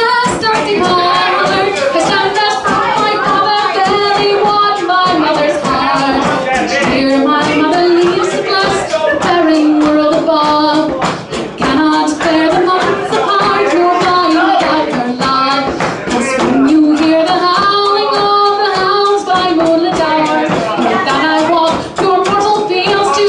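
A woman singing a slow melody solo, with long held notes that rise and fall and brief breaths between phrases. Light percussive taps, from a hand frame drum, run underneath.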